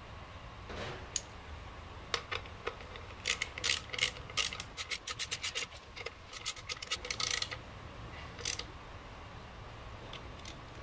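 Handling of a breaker bar and its metal drive head: a string of sharp metallic clicks and rattles, thickest in a quick run in the middle, with a few single clicks before and one after.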